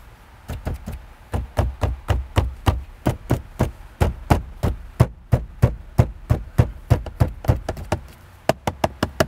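Fists knocking repeatedly on the plastic dashboard trim of a 2013 Toyota RAV4, about three knocks a second with short pauses. The knocking is done to bring out and locate a rattle from a loose trim panel inside the dash.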